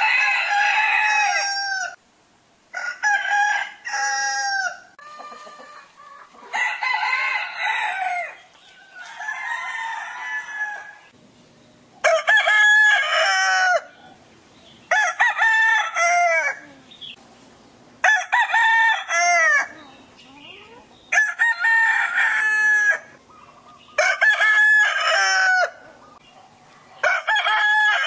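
Roosters crowing one after another, about ten crows in a row, each lasting roughly two seconds with short pauses between, from several different birds.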